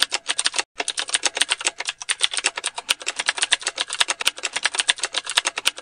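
Typing sound effect: a rapid run of key clicks, several a second, with a brief break about two-thirds of a second in.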